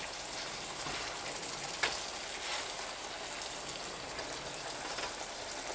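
Flour-dredged pork steaks searing in olive oil in a pan over medium heat: a steady sizzle and crackle of fat, with one sharp click about two seconds in.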